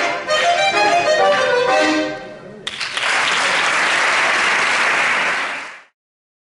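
Three trikitixa (Basque diatonic button accordions) playing the last notes of a tune, which die away about two and a half seconds in. The audience then breaks into applause, which cuts off abruptly about three seconds later.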